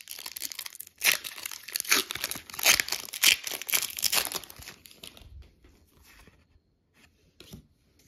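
Pokémon trading-card booster pack's foil wrapper being torn open and crinkled by hand: a run of sharp crackling tears for about the first five seconds, then quieter, with only a few faint rustles.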